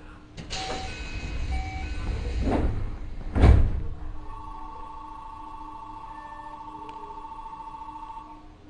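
Keio 7000 series train's sliding doors closing before departure: short beeps, then the doors run shut and close with two thuds, the second and loudest about three and a half seconds in. A steady high two-note tone follows for about four seconds over a constant low hum.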